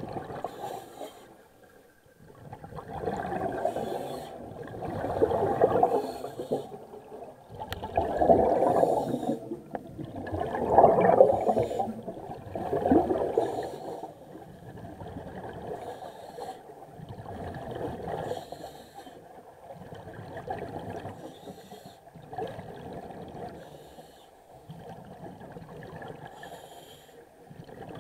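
Scuba diver breathing through a regulator underwater: bubbling exhalations coming every two to three seconds, louder in the first half.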